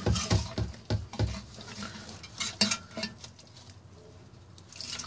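Metal clinks and taps of a wrench and bolts on a differential cover while the cover bolts are being loosened. The clinks come thick in the first second and a half, then scattered and fainter.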